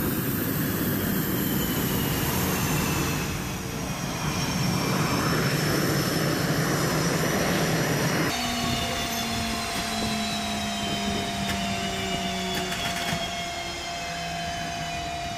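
Twin jet engines of an F/A-18 Hornet running at taxi power: a loud rushing noise with high whines that slowly fall in pitch as the jet rolls past. About eight seconds in, the sound changes abruptly to a steadier engine noise with one held whine.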